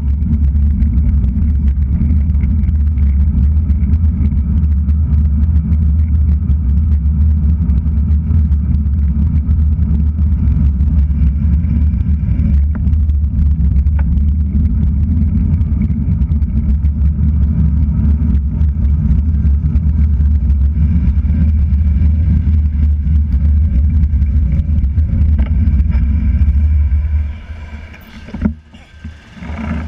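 Steady low rumble of wind and road noise on a handlebar-mounted GoPro Hero3+ while riding a road bike. The rumble drops away sharply about 27 seconds in as the bike slows.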